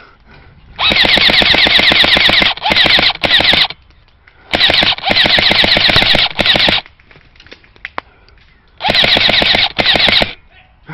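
Airsoft gun firing rapid fully automatic bursts in three groups of strings, starting about a second in, about four and a half seconds in and near the end, with short pauses between.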